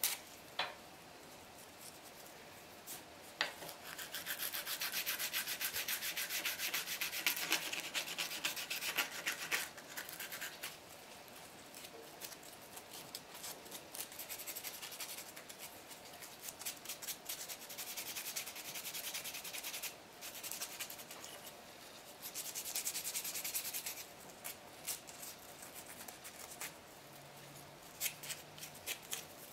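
Sandpaper rubbed by hand over a small wooden piece in quick back-and-forth strokes, coming in spells, louder from about four to ten seconds in and again past twenty-two seconds.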